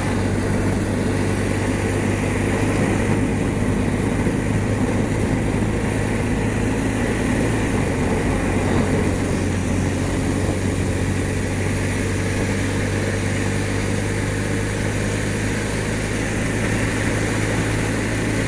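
BMW R1200RT's boxer-twin engine running steadily as the motorcycle cruises, with a steady rush of wind and wet road noise over it.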